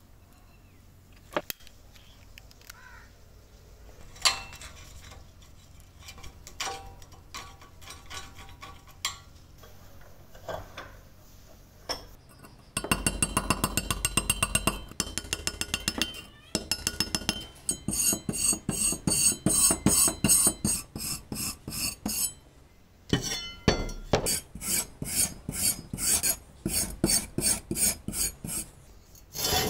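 Hand work on a rusty steel spade blade: after a quiet stretch of scattered small clicks and taps, a screwdriver scrapes and chips away rust scale in rapid strokes, then a wire brush is scrubbed over the rusty blade in quick back-and-forth strokes, with one short pause.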